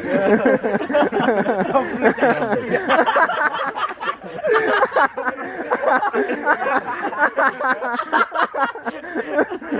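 Several men laughing and chattering at once, overlapping voices and giggles with no pause.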